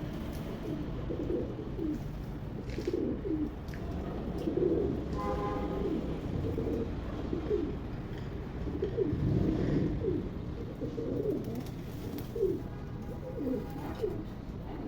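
Pigeons cooing: many short, low calls repeating and overlapping.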